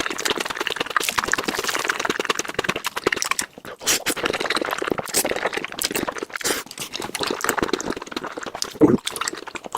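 Noodle-eating mouth sounds sped up four times: a dense, rapid run of slurps, chews and wet mouth clicks.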